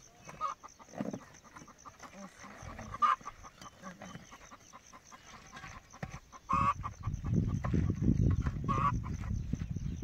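Chickens clucking in a few short, separate calls, with a low rumble under the last few seconds.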